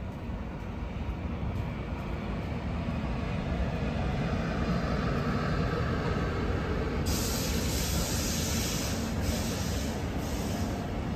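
Train running on rails, a steady low rumble of wheels and carriages. About seven seconds in, a loud hissing rush cuts in sharply and pulses to the end.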